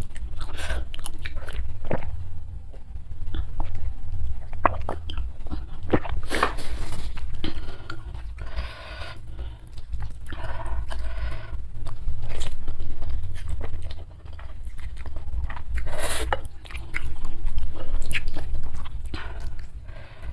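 Close-miked mouth sounds of a person eating: chewing, with crunchy bites and wet mouth clicks, over a steady low hum.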